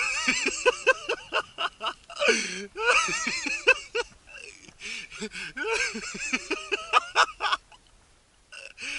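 A person's voice making quick, rising and falling sounds without clear words, broken by short pauses and falling almost quiet shortly before the end.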